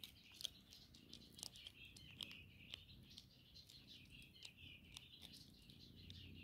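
Hedgehog chewing dry cat-food kibble: faint, irregular crunching clicks, over continuous chirping of birds in the background.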